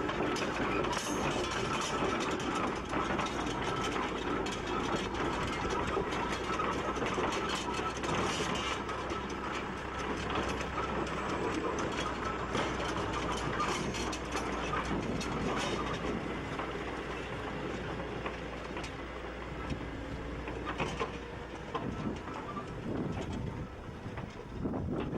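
Aveling and Porter steam road roller running, a busy clatter of mechanical knocks over a steady low hum; it grows somewhat quieter over the last few seconds.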